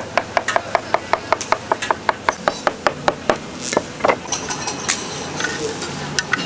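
Rapid, even chopping strokes, about six a second, stopping a little over three seconds in, followed by a few scattered knocks and light metallic clatter.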